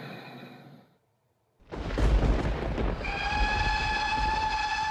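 Train noise rumbles in suddenly after a brief silence. About a second later a train horn sounds one steady, held note for roughly two and a half seconds.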